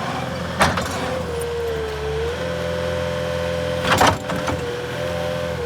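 Cat 279D rubber-tracked skid steer's diesel engine running steadily, with a steady whine over it that wavers slightly in pitch. There are two sharp knocks, about half a second in and about four seconds in.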